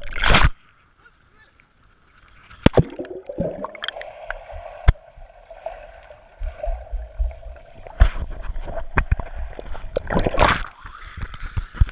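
Splash as a GoPro action camera in its waterproof housing plunges into lake water, then muffled underwater sound: scattered sharp knocks and a faint steady tone. A low rumble comes in about six seconds in, with loud splashes as the camera breaks the surface near the end.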